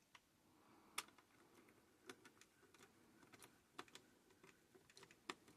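Faint, scattered clicks and ticks of small screws and a screwdriver being handled while a small electronics case is taken apart, with a few sharper clicks about a second in and near the end.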